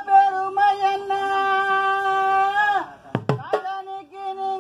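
A man singing a long, steady held note in a Tamil funeral lament (oppari) for a dead father, without drums. Near the end of the third second the note slides down and breaks off, then he takes it up again.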